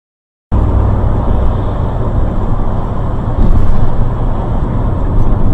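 A moving vehicle's engine and road noise, loud and steady with a heavy low end. It cuts in suddenly about half a second in, after silence.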